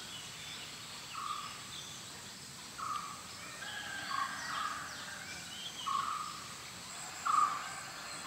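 Birds calling in open countryside: one bird repeats a short call about every one and a half seconds, the loudest near the end, over fainter chirps and whistles from other birds. A thin steady high tone runs underneath.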